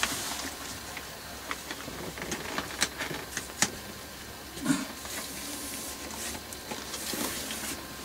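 Scattered light clicks, taps and rustles of hands handling parts inside an open camper fridge, over a steady background hiss, with a brief louder scrape a little before five seconds in.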